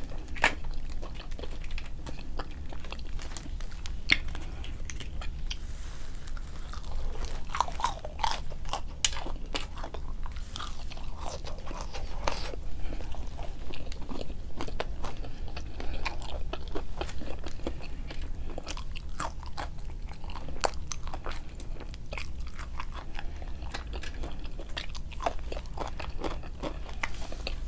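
Close-up sounds of a person biting and chewing McDonald's food, with irregular crunchy clicks and mouth noises throughout, over a low steady hum.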